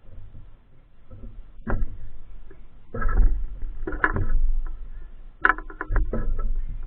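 Wind rumbling over a GoPro's microphone in uneven gusts as the camera spins on a ceiling fan, with sharp clicks and rattles from the mount mixed in.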